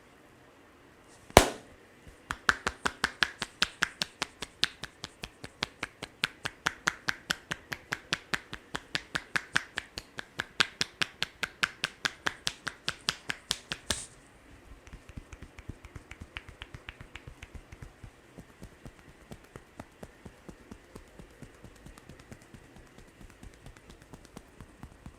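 Hand tapping of an Indian head massage: one loud sharp clap about a second in, then a fast, even train of sharp claps, several a second, for about twelve seconds. The taps then turn softer and quieter for the rest.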